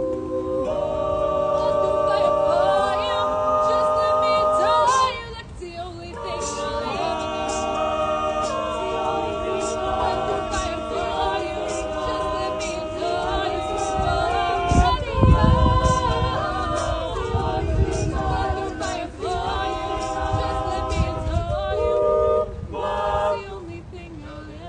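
Mixed-voice a cappella group singing held chords in close harmony, several voices moving together from chord to chord, with a brief break about five seconds in. The singing drops away shortly before the end.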